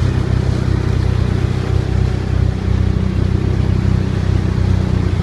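Motor vehicle engine running steadily at low, even revs.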